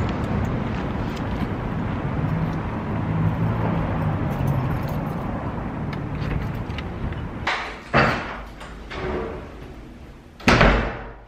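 Steady background noise with a low hum, then a front door being unlocked and opened with a couple of sharp clacks about three-quarters of the way through, and a loud door thump near the end.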